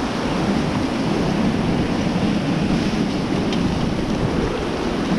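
White water rushing steadily through a river rapid.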